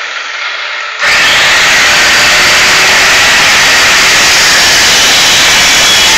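Corded angle grinder comes in suddenly about a second in and runs at full speed, grinding steadily through a steel shelving upright and throwing sparks.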